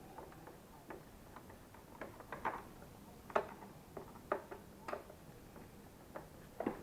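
Irregular light clicks and knocks of hard plastic vacuum-cleaner parts being handled and unclipped during disassembly, a dozen or so, with a few louder knocks in the second half.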